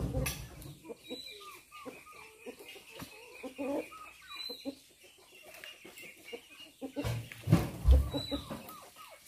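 Chickens clucking over and over, with a cluster of heavy thuds about seven to eight seconds in as oil palm fruit bunches are thrown into a dump truck's bed.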